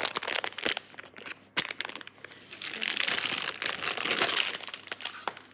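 Packaging crinkling and crackling as it is pulled and twisted by hand in an attempt to tear it open without scissors, with a sharp snap about a second and a half in.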